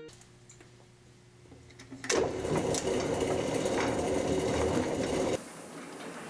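Near quiet for about two seconds, then an offset printing press running with a dense mechanical clatter, cutting off abruptly after about three seconds to a quieter, hissing machine noise.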